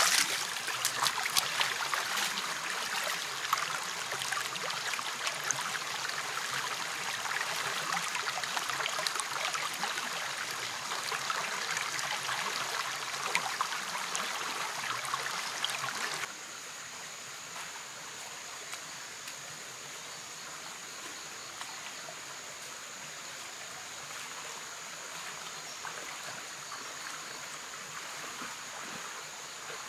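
Shallow rocky forest stream rushing and trickling over stones. About sixteen seconds in it switches abruptly to a quieter, gentler flow, with a steady high insect whine running over it.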